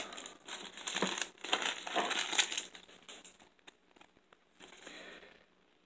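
Foil wrapper of a baseball card pack crinkling as hands open it and pull out the cards, busiest in the first two or three seconds, then faint.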